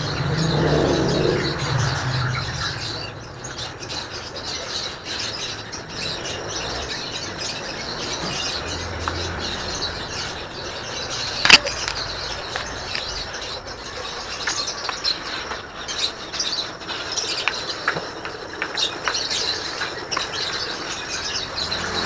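Shop ambience with small birds chirping throughout and one sharp click about halfway through.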